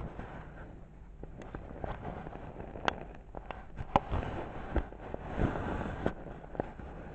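Rustling of fabric with scattered sharp knocks close to the microphone: handling noise of a camera being moved about on a bedspread.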